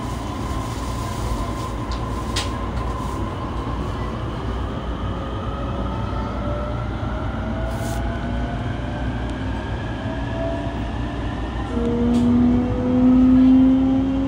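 JR E233-3000 series electric train running, heard from inside the motor car: the Hitachi IGBT-VVVF inverter and MT75 traction motors whine in thin tones that climb slowly in pitch as the train gathers speed, over a steady rumble of wheels on rail. About twelve seconds in, a louder, lower whine cuts in and keeps rising.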